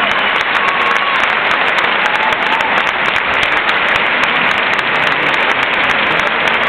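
Large crowd applauding steadily, with a few faint calls rising above the clapping.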